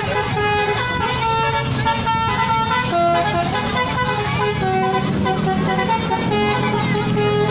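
Bus basuri musical air horn (telolet horn) playing a tune of held notes that step up and down in pitch, over a low steady hum.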